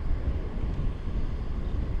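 Wind buffeting a GoPro's microphone while riding a bicycle: an uneven low rumble that rises and falls in gusts, with a lighter hiss above it.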